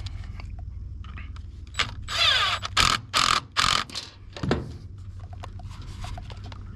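Hand-tool and metal-part handling while bolts are put back into a small trimmer engine: a few short mechanical ratcheting bursts about two to four seconds in, then a single knock.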